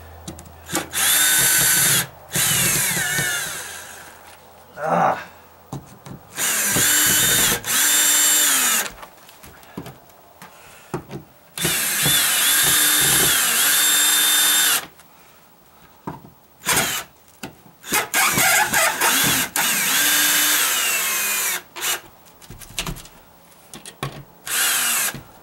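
Ryobi cordless drill-driver running in repeated short bursts, its motor whining up to speed and winding down each time, as it backs screws out of an OSB panel. The longest run lasts about three seconds, about halfway through.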